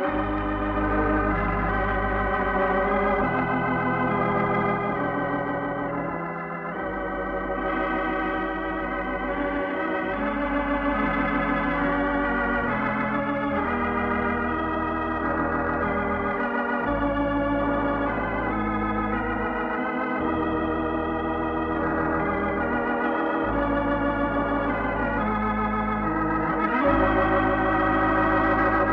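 Organ playing the programme's closing theme: slow, sustained chords with a wavering vibrato over deep held bass notes that change every few seconds, swelling a little louder near the end.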